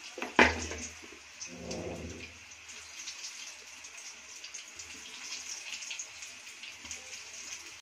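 Soya kababs sizzling and crackling in hot oil in a frying pan on low heat, a steady hiss full of small pops. A single sharp knock comes about half a second in.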